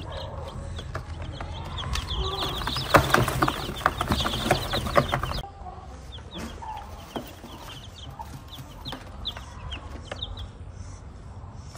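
Newly hatched chicks peeping: rapid, high, short chirps that slide downward, mixed with sharp clicks and rustles. Loudest in the first half, then fainter after a sudden drop about five seconds in.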